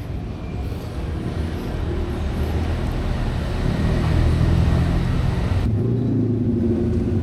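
A motor vehicle's engine running, a low steady rumble that grows louder through the first half. The hiss above it drops away suddenly near the end.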